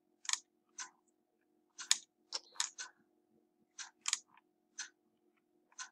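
Computer mouse clicking: about a dozen short, sharp clicks at irregular intervals, some close together in pairs, over a faint steady hum.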